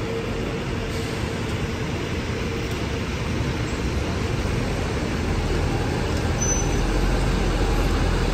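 Bus engine and road traffic noise, a steady rumble that grows louder about six seconds in.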